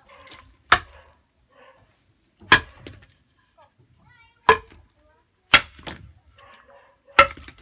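Five sharp knocks, irregularly spaced one to two seconds apart.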